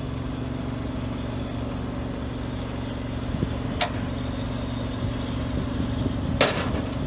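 Engine idling steadily on a thermoplastic pavement-marking truck, with two sharp knocks about four and six and a half seconds in.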